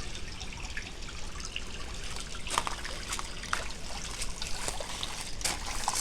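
Water trickling steadily, with a few short light clicks over it about halfway through and near the end.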